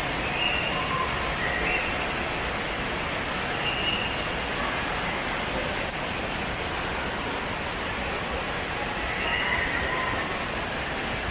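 Water rushing steadily down the open flumes and runout of an indoor water slide, a constant splashing rush with faint distant voices calling here and there.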